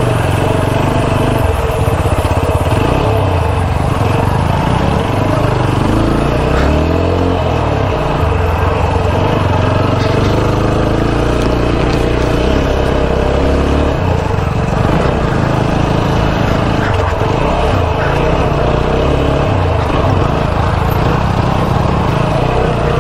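Motorcycle engine running at low revs while riding a rough dirt track, its pitch shifting up and down, over a steady haze of riding noise.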